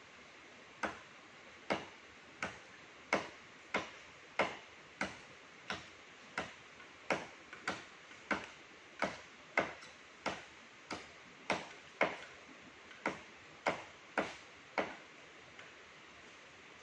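Machete strikes chopping into a tree trunk: about twenty sharp knocks at a steady pace of roughly one and a half a second, stopping a couple of seconds before the end.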